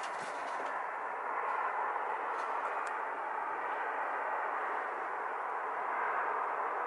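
Steady outdoor background noise, an even hiss, with a few faint ticks about two and a half to three seconds in.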